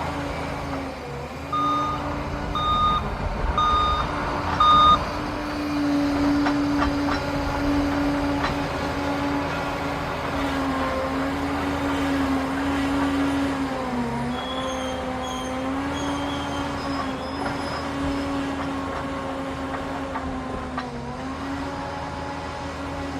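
Liebherr PR 746 crawler dozer's diesel engine running under working load, its pitch dipping and recovering as the load changes. A few seconds in, its reversing alarm beeps four times, about once a second.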